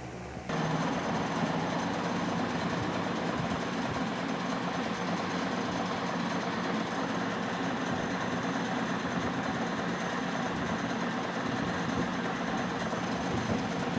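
Metalworking lathe running: a steady mechanical running noise that starts suddenly about half a second in and holds even.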